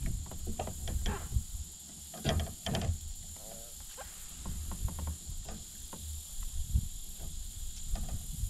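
A steady, high-pitched insect drone, with wind rumbling on the microphone and scattered short clicks and knocks, a cluster of them about two to three seconds in.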